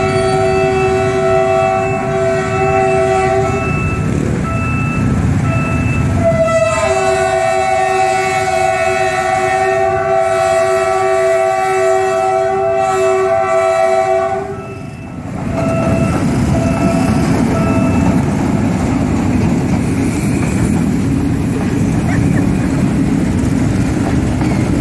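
Train horn sounding a chord of several notes in a long blast, a short break, then another long blast of about eight seconds and a few short toots. Then comes the low rumble and wheel clatter of the train, hauling ex-JR sleeper coaches, rolling over the level crossing.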